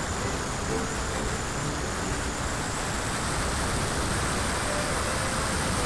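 Steady rush of wind and propeller noise on an onboard camera riding a Multiplex Cularis electric RC glider under power, with a faint high steady whine.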